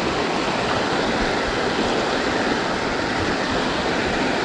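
Steady rushing of river water, an even unbroken wash of noise.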